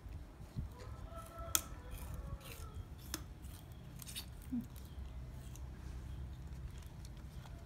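Sugarcane being peeled by hand: sharp, crisp snaps and cracks as strips of the rind are broken off the stalk, a few loud ones among quieter crackling.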